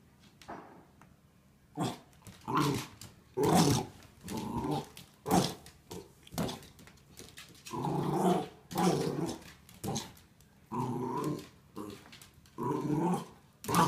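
Wire fox terriers growling in play over a toy: a string of about a dozen short growls with brief pauses between, some of them drawn out longer.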